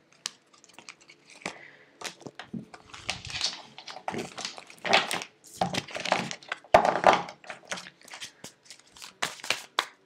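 Deck of tarot cards being shuffled by hand: irregular swishes of cards sliding against each other, turning into a quick run of card flicks near the end.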